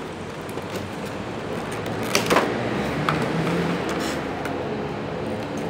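Clear plastic blister tray crackling and clicking as an action figure is worked out of it. The sharpest, loudest crackles come about two seconds in, with a few lighter clicks after, over a steady background noise.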